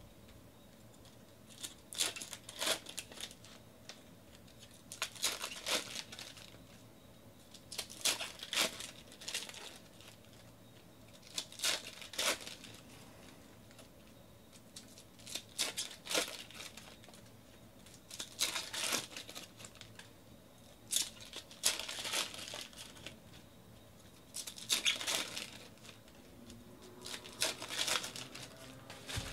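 Hands sorting Panini Donruss Optic baseball cards and setting them onto stacks on a table. The cards rustle and slap in short bursts about every three seconds, and a foil pack wrapper crinkles near the end.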